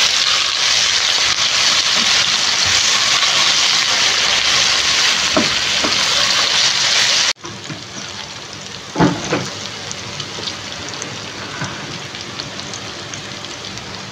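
Chopped garlic, shallots, ginger, galangal and lemongrass sizzling in hot oil in a wok as they are sautéed until fragrant, stirred with a spatula. About seven seconds in, the sizzle drops abruptly to a quieter frying hiss, with a few light knocks.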